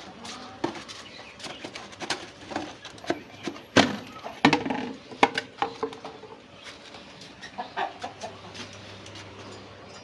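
Chickens clucking in short calls, mixed with sharp knocks and clatter, busiest and loudest around the middle.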